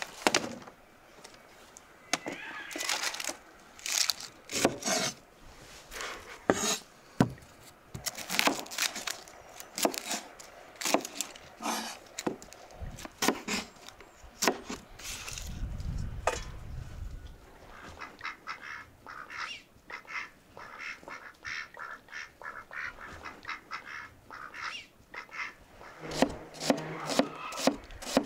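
Geese honking now and then, over a run of irregular sharp clicks and knocks.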